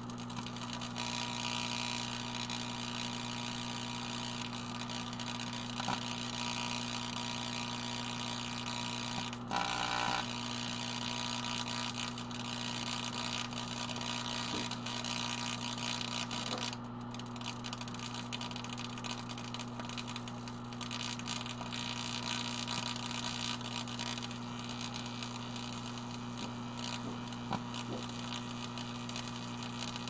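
Microwave oven running with a steady low mains hum, over a continuous crackling, hissing buzz of arcing and burning from an LCD screen and light bulbs inside it. A brief louder burst comes about ten seconds in.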